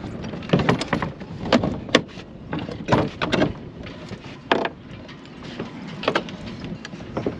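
Irregular clunks and knocks, about a dozen over several seconds, some with a short ring, from a Tohatsu outboard motor being lowered and manhandled on its transom mounting bracket.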